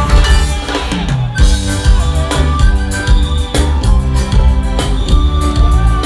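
Band music at sound check: drum kit and bass with other instruments playing an instrumental passage, no singing. The music thins out briefly about a second in, then picks up again.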